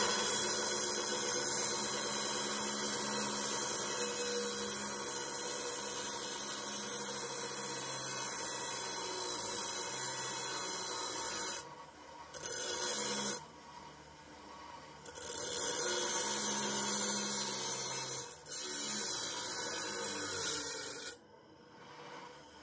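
Bench grinder's abrasive disc grinding steel as a wheel hub is pressed against it to cut away the old bearing race: a loud, steady grinding hiss. It breaks off several times for a second or two as the hub is lifted away, and stops near the end.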